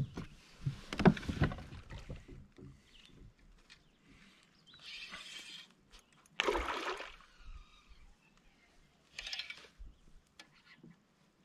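Irregular splashing and knocking around a fishing kayak while a hooked smallmouth bass is fought on a rod and reel: a handful of short noisy bursts, the loudest about a second in and another just past the middle.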